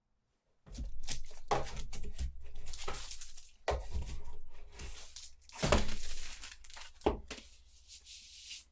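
Plastic packaging crinkling and rustling as it is handled, in a run of irregular crackles with a few sharp knocks, the loudest about six seconds in.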